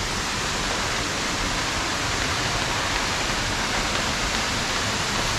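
Spring waterfall's water falling and splashing, a steady rushing hiss with no change in level.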